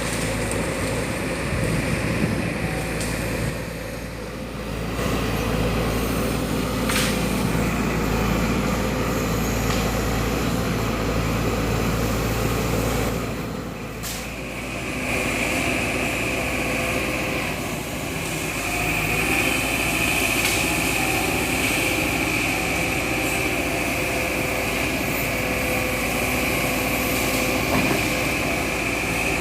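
Sumitomo SH210 hydraulic excavator running and working, its diesel engine a steady drone that dips briefly a few times as the load changes. About halfway through, a steady high whine comes in over the engine.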